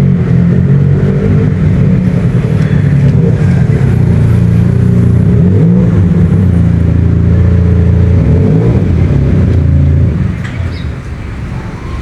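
A motor vehicle's engine running close by, its pitch dipping and rising again a couple of times as it changes speed, then getting quieter about ten seconds in.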